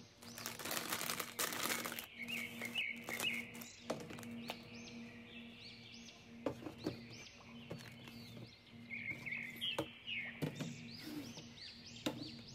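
Birds chirping over a steady low hum, with a burst of rustling near the start and several sharp knocks of tins, plastic containers and jars being moved and set down on a cupboard shelf.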